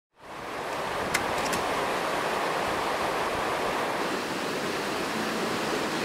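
Mountain waterfall: a steady rush of falling and splashing water that fades in at the start. A short sharp tick about a second in is followed by two fainter ones.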